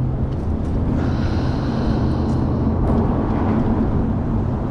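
Steady, low engine drone under a rough wash of outdoor noise.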